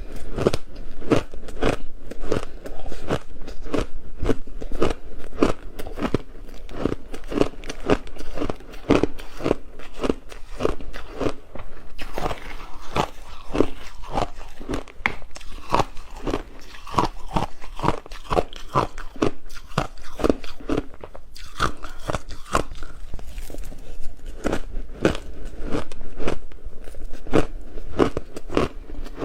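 Frozen matcha ice being bitten and chewed, a steady fast run of crisp crunches several times a second.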